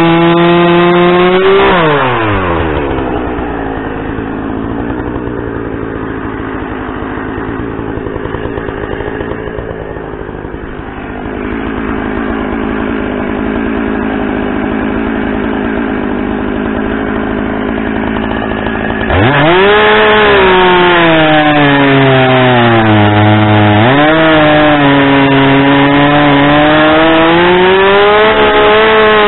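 Gas chainsaw at full throttle that drops to idle about two seconds in and idles steadily for a long stretch. Near the end it revs up hard again and cuts into a log, its pitch sagging and recovering as the chain bites into the wood.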